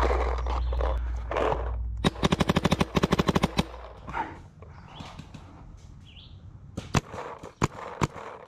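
Adrenalin Angel LCD electronic paintball marker firing a fast string of about twenty shots in a second and a half, roughly thirteen a second. A few single sharp shots follow near the end.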